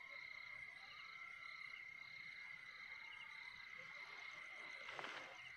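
Faint chorus of night insects: a steady high-pitched trill under a regular chirping about twice a second. A brief rustle near the end.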